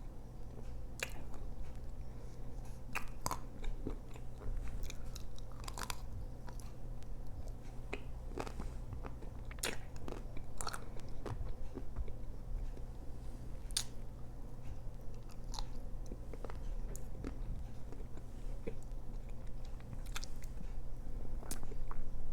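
Close-miked biting and chewing of a Magnum ice cream bar, with scattered sharp cracks as the chocolate shell breaks.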